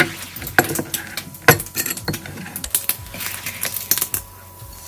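Quick, irregular clicks and knocks of kitchen utensils at work: a knife on a wooden cutting board and a utensil against a frying pan. They stop about four seconds in.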